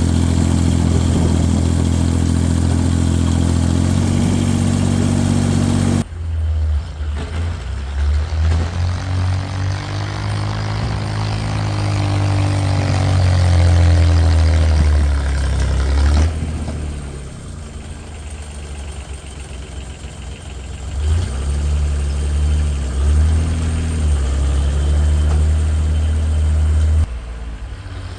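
Lo-Boy tractor's engine running: steady for the first several seconds, then the sound changes abruptly a few times and the engine pitch rises and falls with changing speed and load.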